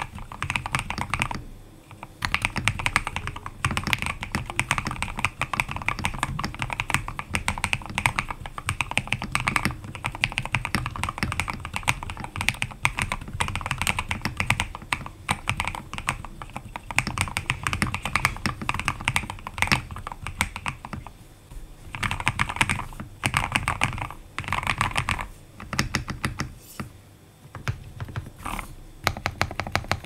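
Typing on a modded Akko 5075S mechanical keyboard with Gateron Milky Yellow linear switches: fast runs of keystrokes with a 'creamy' clack, broken by a few short pauses. Near the end the strokes thin out to a few single presses.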